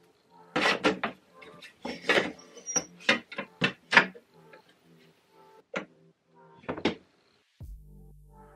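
A metal axle rod being worked through the tubes of an aluminum deer cart's frame: a run of irregular metal clanks and knocks, thickest in the first four seconds and thinning out after. Music starts near the end.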